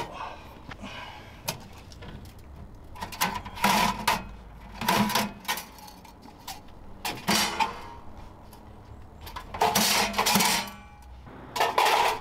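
Metal stove parts clanking and rattling against the stainless body of a small box-shaped wood stove as they are lifted out, in about six short bursts of metallic clatter.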